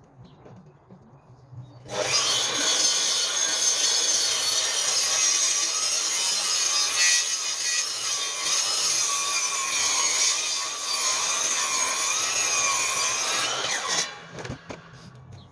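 Makita sliding mitre saw starting about two seconds in and cutting through a thick timber sleeper, its whine wavering as the blade works through the wood. After about twelve seconds the cut ends and the saw stops.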